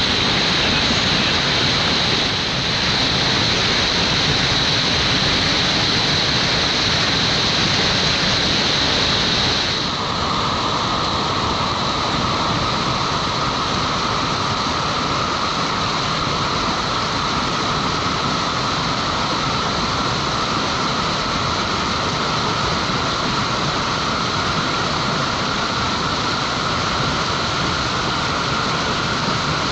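Steady rush of whitewater pouring through a hole on an artificial whitewater course. The character of the noise changes abruptly about ten seconds in.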